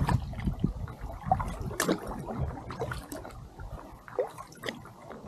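Kayak paddle strokes on calm lake water: the double-bladed paddle dipping in, with water trickling and dripping off the blades in small irregular splashes. A low rumble of wind on the microphone fades after about the first second.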